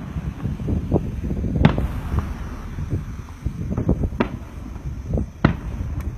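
Fireworks display: aerial shells bursting, with several sharp bangs over a continuous low rumble of overlapping booms.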